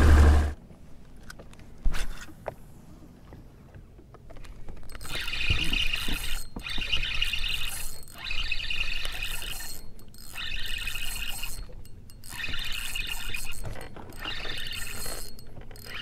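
Spinning reel being cranked in short bursts with brief pauses every second or two, starting about four seconds in; a single sharp click a couple of seconds in.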